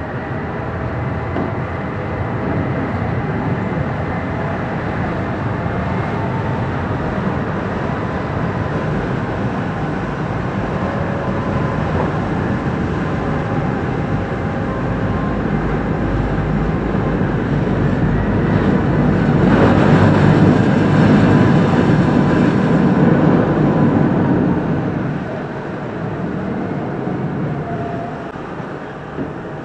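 Thames Clipper river bus's diesel engines running under way, a steady drone with a faint whine and rushing water. It swells louder about two-thirds of the way through and eases a few seconds later as the boat comes in toward the pier.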